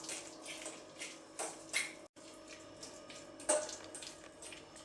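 A spoon mixing cream cheese with chopped vegetables in a container: soft, irregular stirring strokes, a few of them louder. A faint steady hum runs underneath.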